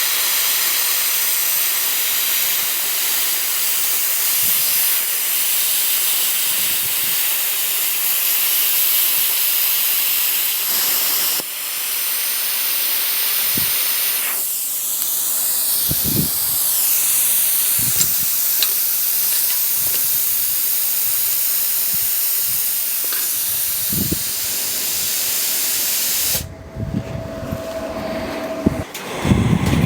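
Plasma cutter cutting a circle out of 6 mm steel plate on a rotary circle-cutting guide: a loud, steady hiss of the arc and air that cuts off near the end, followed by a few knocks.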